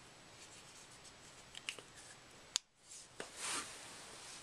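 Folding knife handled in the hands: a few small clicks, a sharp click about two and a half seconds in, then another click and a brief rubbing swish.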